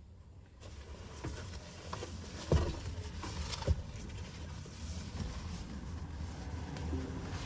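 A steady low rumble with a few short knocks and thuds, the loudest about two and a half seconds in.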